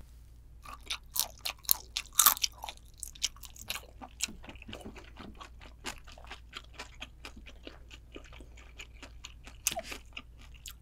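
Close-up chewing of raw Japanese spiny lobster meat: a quick run of loud, sharp mouth clicks in the first couple of seconds, then steadier, softer chewing clicks, with one more loud cluster near the end.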